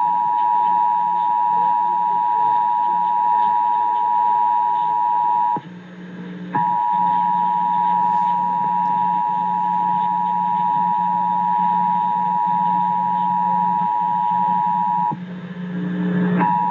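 Emergency Alert System two-tone attention signal (853 and 960 Hz sounded together), marking a Required Monthly Test. The steady tone breaks off twice for about a second and starts again, with a low hum underneath.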